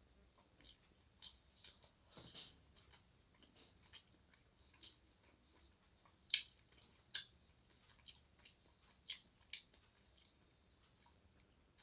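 Faint chewing and lip smacks of a person eating rice with chicken by hand, heard as scattered short clicks a few times a second.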